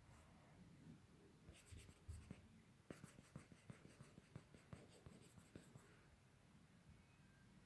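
Faint, irregular small clicks and scratching, tapping along unevenly for a few seconds and then easing off.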